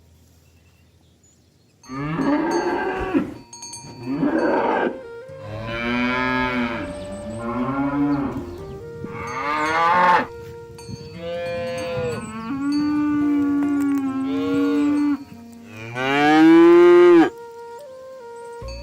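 Cattle mooing: a run of about eight drawn-out moos, one after another, rising and falling in pitch, the last one the loudest. Faint steady chime-like tones ring underneath.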